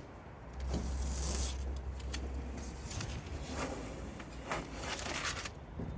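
Masking tape being peeled and vinyl handled on a van panel: short crackling, tearing and scraping sounds. A low rumble runs underneath through the first half.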